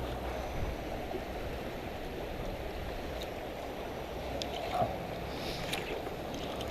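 Steady rush of flowing creek water, with a few faint ticks.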